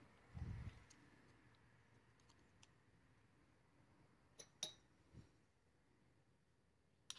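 Near silence broken by a soft low thump and a few faint clicks of small metal hanger parts (threaded rod, tube and drilled plate) knocking together as they are fitted by hand.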